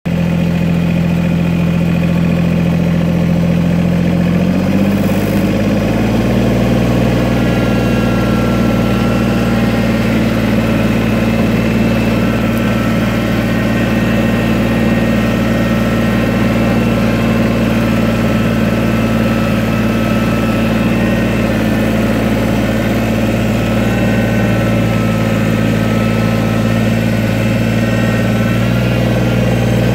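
Kubota compact tractor's diesel engine running steadily under way, its pitch rising about five seconds in as the revs come up, then holding.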